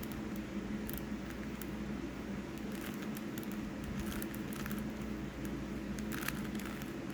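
A Rubik's Cube being turned by hand: irregular small plastic clicks and rattles as the layers are twisted, with a stronger click about six seconds in. A steady low hum runs underneath.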